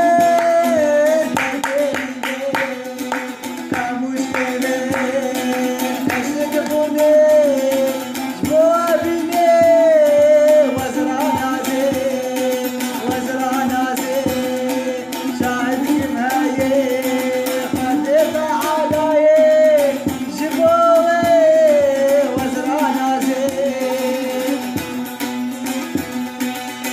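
A song: a solo voice singing a wavering, ornamented melody over steady hand-drum percussion.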